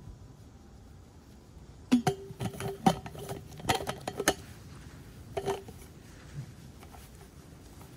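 Stainless steel insulated bottle and its metal cup-lid knocking together as they are handled: a quick run of metallic clinks about two seconds in, each with a brief ringing tone, then another clink a little later.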